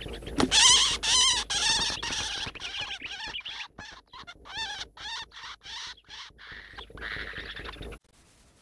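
A Eurasian hoopoe struggling on the ground, giving a rapid series of harsh, wavering distress squeals with its wings flapping. The squeals cut off about eight seconds in.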